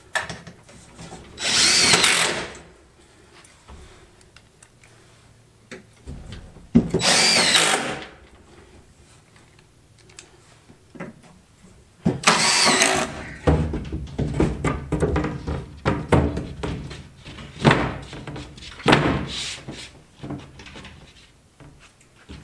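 Cordless drill driving self-tapping screws through panelling into an aluminium extrusion frame, in three runs of a second or so each. In the second half come a series of sharp, irregular knocks and clatters.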